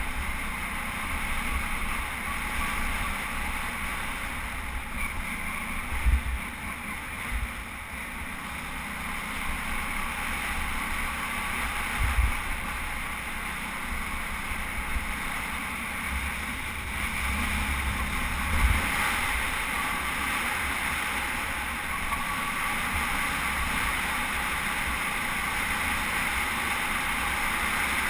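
Steady wind rush on a helmet-mounted camera over a Suzuki V-Strom 650 motorcycle's V-twin engine cruising at a steady speed, with three short low thumps spread through.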